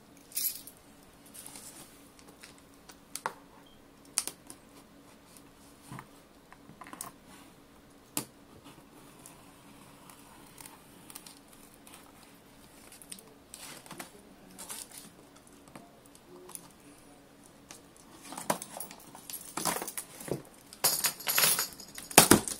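A cardboard box being opened by hand: scattered taps, clicks and rustles of hands and tools on the cardboard, then near the end a denser run of scraping, crinkling and tearing as the box's seal and flaps are worked open.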